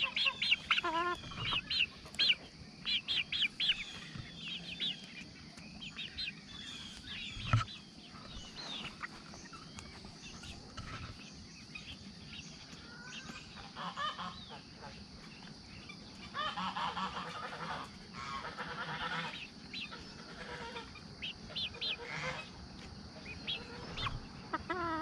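Backyard poultry calling: young chickens giving quick strings of short high peeps, mixed with goose honks, with a thicker spell of calling about two-thirds of the way through.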